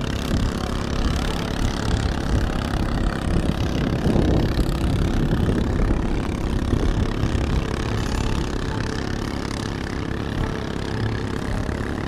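Gusty storm wind buffeting the microphone: a continuous low rumble that rises and falls in gusts.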